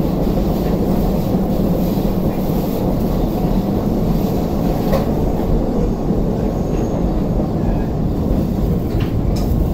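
Steady low rumble of a Keisei 3500 series commuter train running, heard from inside the passenger car, with a couple of brief faint clicks.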